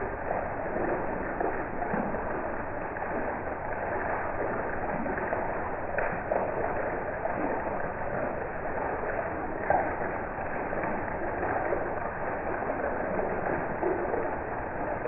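Heavy rain falling, with runoff pouring off a roof edge and splashing onto the wet ground: a steady, even splashing hiss, with a couple of brief louder splats about six and ten seconds in.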